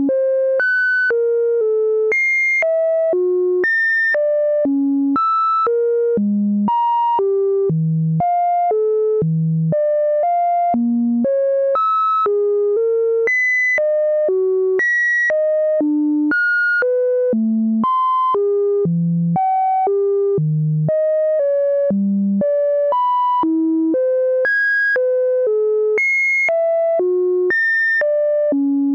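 Sine-wave test tones through an HCF4069UBE CMOS inverter wired as an audio amplifier, jumping to a new pitch about twice a second, from low notes up to high whistles in no set order. Each tone is nearly pure, with faint overtones.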